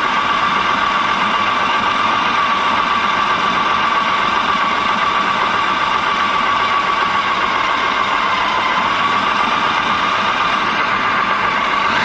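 Electric food processor motor running continuously, its blade coarsely chopping green fava beans with onion, herbs and garlic. A steady whine over a whirring hum; the pitch sags slightly about two-thirds of the way through and then comes back up.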